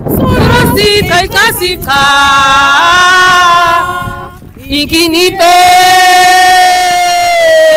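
Unaccompanied voices singing a chant-like song with sustained notes. There is a short break about four and a half seconds in, then one long note is held steady for over two seconds.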